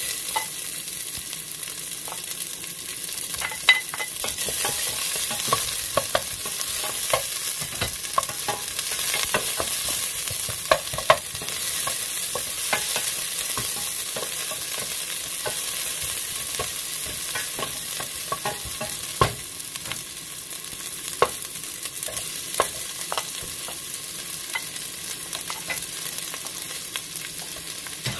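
Garlic and onion frying in a stainless steel pot: a steady sizzling hiss, with a wooden spoon scraping and knocking against the pot as it stirs, in irregular sharp taps.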